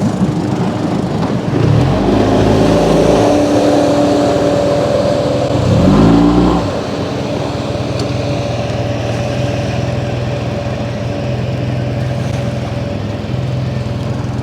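Motorboat engine running, revving up about two seconds in and again around six seconds, then running at a steady pitch.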